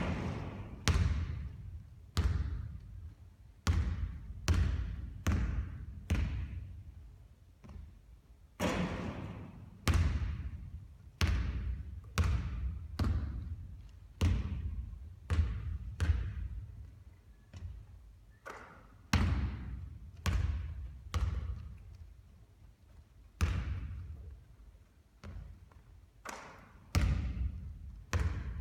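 A basketball striking a hard court again and again, about one impact a second at uneven spacing, each a sharp thud that rings on briefly.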